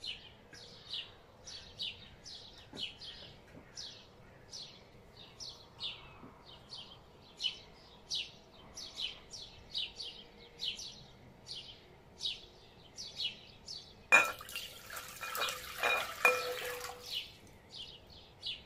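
A small bird chirps steadily, about two short high chirps a second. About fourteen seconds in, cold water is poured from a glass jug into a glass bowl for a few seconds, splashing and ringing; this is the loudest sound.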